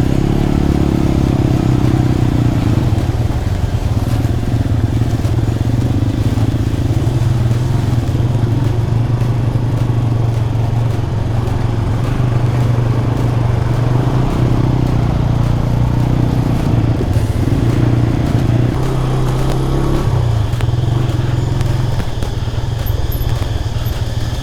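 Motorcycle engine running steadily under way, with a low, even engine note and rough, noisy sound above it.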